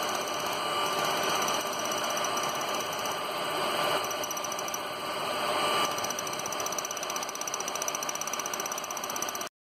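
A machine running steadily: a continuous hum and hiss with a faint steady tone, its sound shifting slightly about six seconds in.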